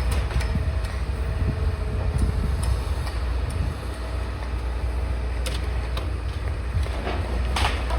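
Demolition excavator's diesel engine running with a steady low rumble, with wind buffeting the microphone. There are a few sharp cracks of breaking debris, the loudest near the end.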